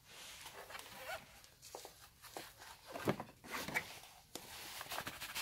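Handling noise: a slippery fabric pouch holding a multimeter rustling and scraping against a cardboard box as it is pushed in, with a few soft knocks, loudest about three seconds in.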